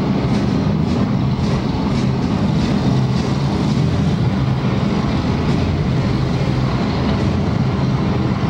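Propeller engines of a prop flying-wing plane running with a loud, steady low drone as the propellers turn.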